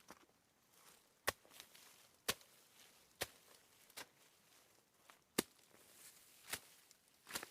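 A hand tool chopping repeatedly, about eight sharp strikes at roughly one a second, uneven in spacing and strength, typical of field work while planting elephant grass.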